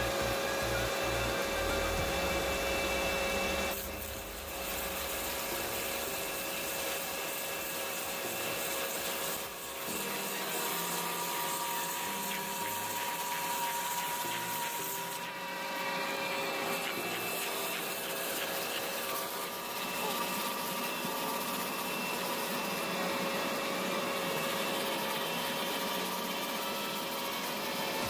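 Tractor-mounted hydraulic stump auger boring into a tree stump, grinding the wood into chips, over a steady machine whine. The sound shifts abruptly a few times.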